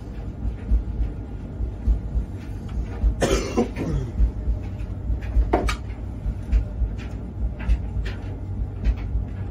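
Light clicks and taps of parts being handled on an opened gas combi boiler's fan and burner assembly. About three seconds in comes a short, louder cough-like burst with a falling pitch, and a sharp click follows a couple of seconds later.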